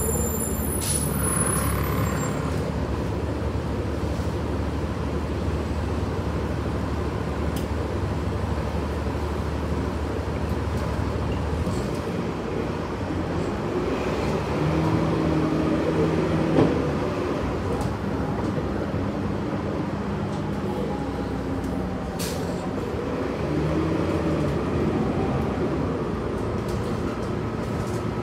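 Inside a city transit bus under way: steady engine and road noise. A strong low hum drops away about twelve seconds in, a few short steady tones sound midway and near the end, and there are a few brief high clicks or hisses.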